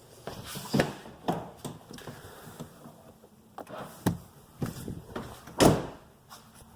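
A series of separate knocks and clunks from the rear hatch being handled as it is tried on its newly fitted gas struts, the loudest about a second in, about four seconds in, and near the end.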